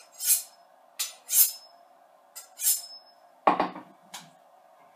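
Sabatier kitchen knife stroked along a steel honing rod, three quick scraping strokes about a second apart, each leaving a thin high ring; this even ring on every stroke is the sign of a steady honing angle. Near the end comes a louder knock and a lighter clink of metal.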